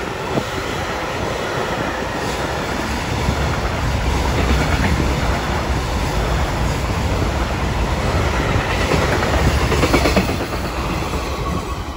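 Container freight train wagons rolling past close by, their steel wheels running over the rails with a loud, steady rumble that dies down near the end.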